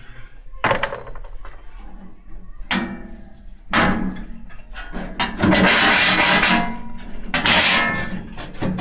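A metal flue damper (shiber) being worked out of a homemade steel stove: a few metal clanks, then two long bouts of metal scraping against metal in the second half.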